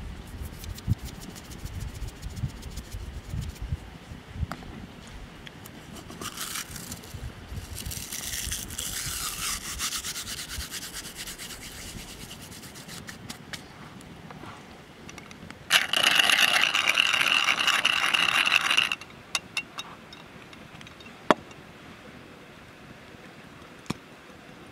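Seasoning sprinkled and rubbed by hand onto a raw ground-beef patty on a wooden board: grains of salt and dry herbs falling as small scattered ticks, with dry rubbing. A louder rasping grind lasts about three seconds past the middle.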